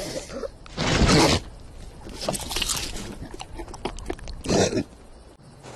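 Cartoon lion's grunting and straining vocal effects as a boulder presses down on him, with a loud burst about a second in and a shorter one about four and a half seconds in.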